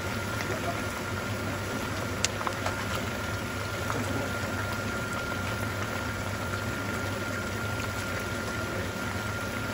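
Pork intestines deep-frying in a pan of hot oil, bubbling and sizzling steadily, with a single sharp tick about two seconds in.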